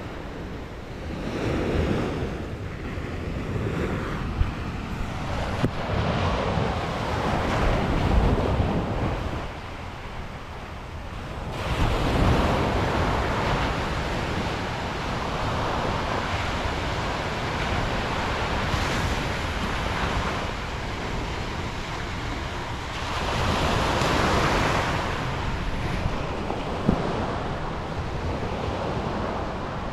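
Ocean surf washing and breaking in repeated surges, each swell building and fading over several seconds, with a brief lull before a fresh surge about twelve seconds in.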